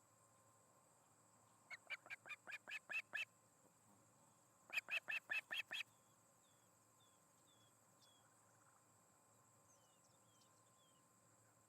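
Osprey calling: two runs of about eight sharp, whistled chirps each, the second run quicker.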